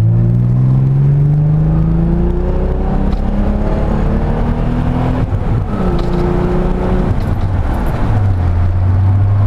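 Naturally aspirated Nissan 300ZX (Z32) VG30DE V6 in a hard second-gear pull. The revs climb steadily for about five seconds, drop with an upshift, climb briefly again, then settle to a steady lower note near the end.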